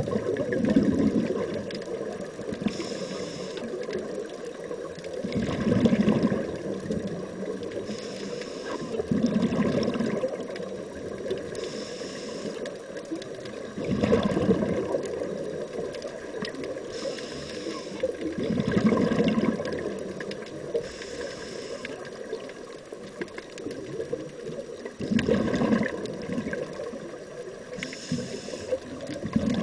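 Scuba diver breathing through a regulator underwater: a short hiss on each inhale, then a louder burble of exhaust bubbles on each exhale, one breath about every four to five seconds.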